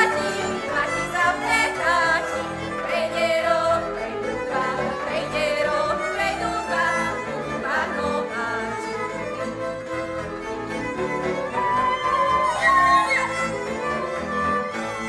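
Live Slovak folk string band playing a dance tune led by fiddles, with bowed strings underneath.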